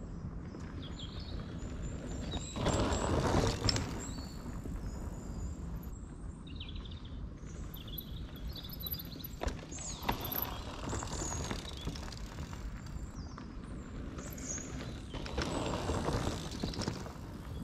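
Outdoor woodland background with small birds chirping on and off, and a mountain bike rolling past close by near the end, its tyres on the dirt trail swelling and fading.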